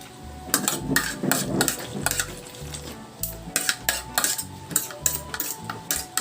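Spoons and forks clinking and scraping against plates and bowls during a meal, in quick runs of sharp clinks.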